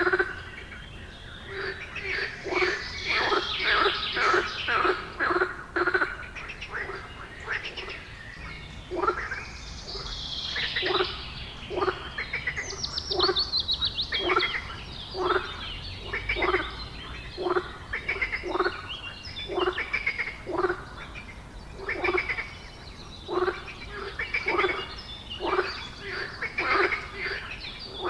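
A long run of short animal calls repeated about one to two times a second, each a brief call with a low tone and a raspy top, overlapping in places as if from more than one animal.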